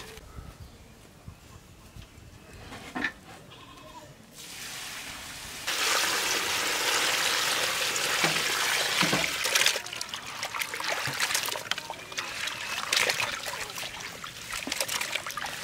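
Water pouring in a steady gush into a metal pot full of dragon fruit, starting about six seconds in. After about four seconds it gives way to hands sloshing and splashing the fruit around in the water as they wash it.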